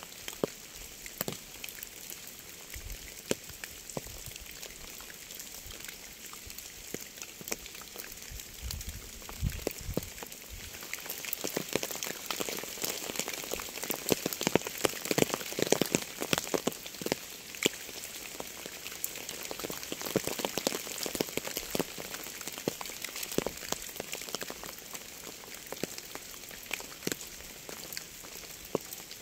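Rain falling: a steady hiss with many separate drops ticking close by. It grows heavier about ten seconds in and eases again a little after twenty seconds.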